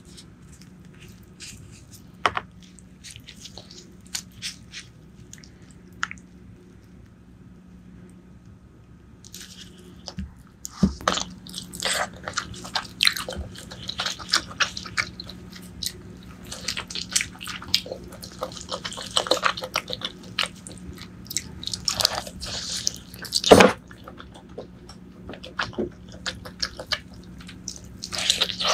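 Close-miked eating of braised pork leg: wet chewing and mouth clicks, sparse at first and then dense and steady from about ten seconds in, with one louder knock about two-thirds of the way through.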